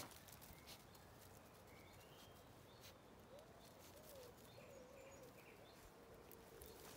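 Faint outdoor evening ambience: distant birds giving short chirps. From a little after three seconds in there is a faint wavering, lower-pitched call, along with a few soft clicks.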